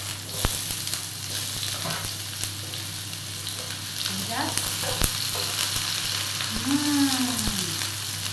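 Diced onions sizzling in hot oil in a stainless-steel electric skillet, stirred with a wooden spatula that scrapes and taps against the pan now and then.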